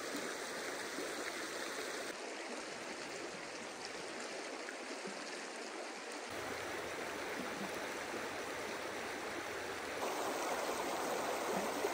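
A river flowing over rocks, a steady rush of water. Its tone shifts abruptly a few times, about two, six and ten seconds in.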